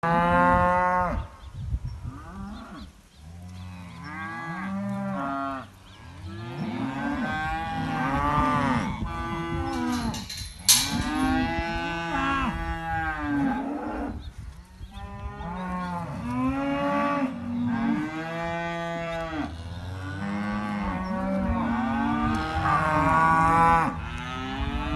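Shorthorn weaner calves bawling, many overlapping moos one after another. There is a single sharp knock about ten seconds in.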